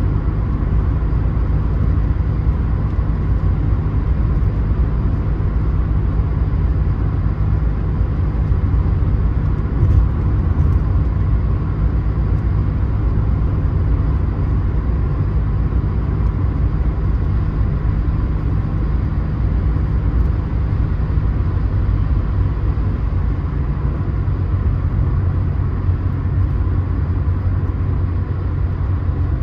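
Steady road noise inside a Mercedes-Benz car cruising at motorway speed: a constant deep rumble of tyres and engine, briefly louder about ten seconds in.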